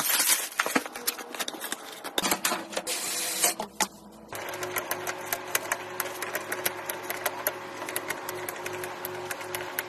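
Dense clicking and rustling at first. From about four and a half seconds in, a small motor runs with a steady hum and fast, even clicking.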